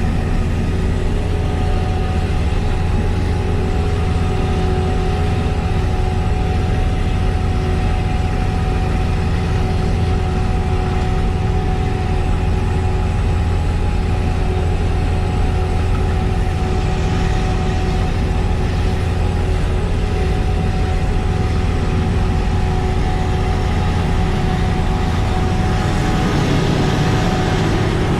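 Kleine SF10.2 sugar beet harvester running steadily: a loud, even engine drone with a constant whine over it. The noise grows a little harsher near the end.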